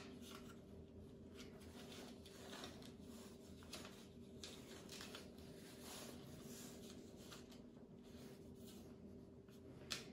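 Very faint handling noise from a Glock 19X in an MCK conversion-kit chassis being turned over in the hands: light rustles and small clicks of the polymer frame and parts, with one sharper click near the end, over a faint steady hum.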